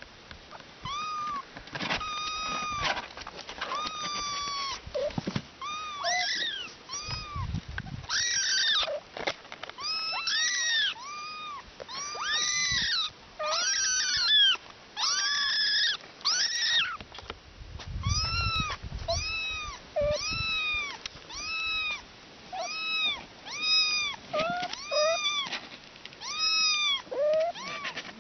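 A cat meowing over and over, high-pitched, about one meow a second, each call rising and falling.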